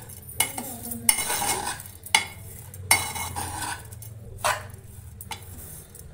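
Metal spoon scraping and clinking against a steel bowl while stirring salt and sugar into soaked poha (flattened rice). Several sharper clinks are spread through the stirring.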